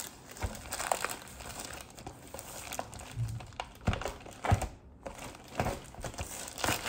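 Plastic courier mailer bag crinkling and crackling in irregular bursts as it is handled and torn open.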